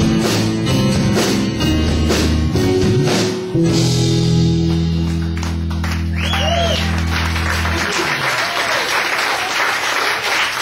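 Live rock band of electric guitars, bass and drums ending a song with a few hits, then a final chord held and ringing for about four seconds before it dies away about eight seconds in. Audience applause starts over the ringing chord and carries on after it.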